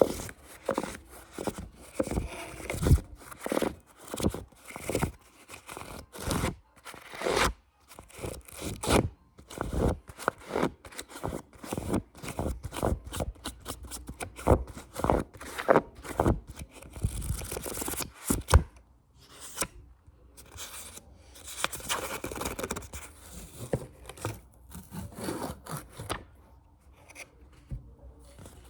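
Close-miked ASMR tapping and scratching: quick, irregular taps and clicks, broken by a few short stretches of rubbing.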